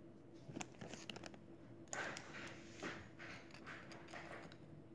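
Plastic Lego bricks being handled and pressed together: scattered small clicks and a few short rustling scrapes, the loudest about two to three seconds in.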